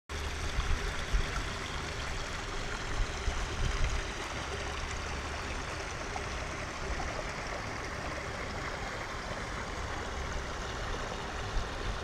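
Small stream running and trickling over stones, a steady rushing water sound, with some low rumbling in the first few seconds.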